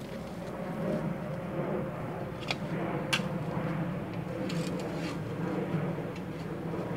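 Steel shovels digging into soil, with a few sharp scrapes and knocks, the loudest about three seconds in, over a steady low mechanical hum.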